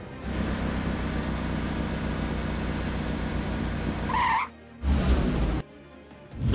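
Cartoon car sound effect: an engine running with a fast low pulsing as the car drives in, ending about four seconds in with a short tyre screech. A brief low rumble follows about a second later.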